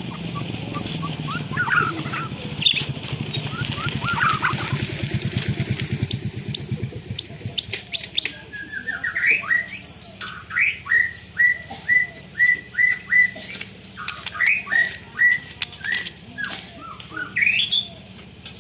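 White-rumped shama singing canary-style song. The first half has scattered quick chirps over a low pulsing rumble. From about halfway, the bird goes into a long run of repeated short rising notes, two to three a second.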